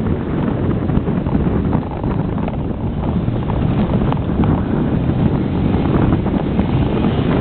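Truck driving across a bumpy grass field: the engine runs steadily under heavy wind buffeting on the microphone, with scattered small knocks and rattles from the rough ground.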